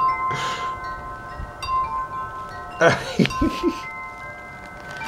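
Wind chimes ringing, several long tones overlapping and fading one into another. About three seconds in, a brief rustle and knock as something is handled.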